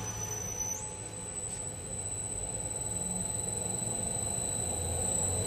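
Gear motor of an empty 100-litre sigma-blade kneader mixer running the blades in reverse while the inching button is held: a steady mechanical hum with a thin high-pitched whine that jumps up in pitch just under a second in.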